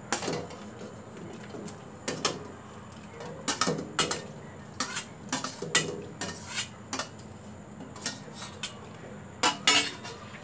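A series of sharp, irregular clinks and knocks of a bowl against a stainless steel soup pot as chopped onion, ginger and garlic are tipped and pushed into the water.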